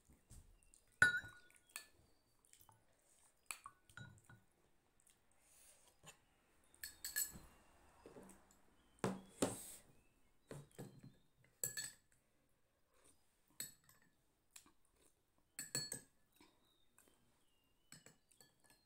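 Spoons clinking and tapping against ceramic bowls as soup is ladled and eaten: scattered sharp clinks, one loud one about a second in.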